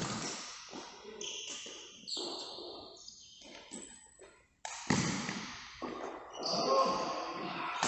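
Badminton play: a string of sharp hits with short ringing tails in a hall, with voices in the background.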